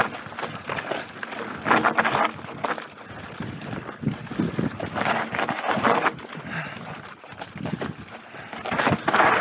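Mountain bike riding down a dirt singletrack: tyres crunching over dirt and stones, and the bike rattling and knocking over bumps, with several louder surges of noise.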